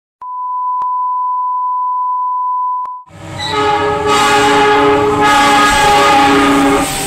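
A steady electronic beep tone for about three seconds, then a diesel locomotive's multi-chime air horn sounding long and loud as the train approaches.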